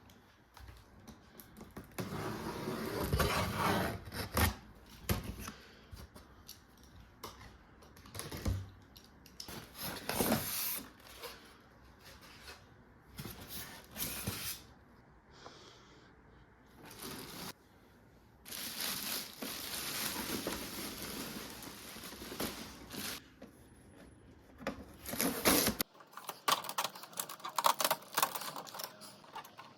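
Unboxing handling sounds: cardboard and plastic packaging scraped, rustled and torn in irregular bursts, with sharp clicks and knocks in between.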